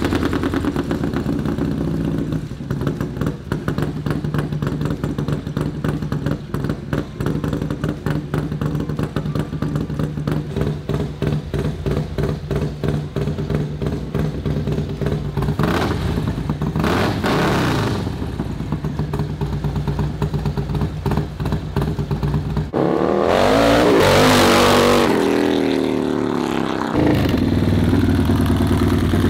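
Harley-Davidson Road Glide's 143 ci (2.3-litre) V-twin running through its two-into-one aftermarket exhaust. It idles steadily, with a brief rev about sixteen seconds in. From about twenty-three seconds the bike pulls away, the engine rising and falling in pitch as it accelerates.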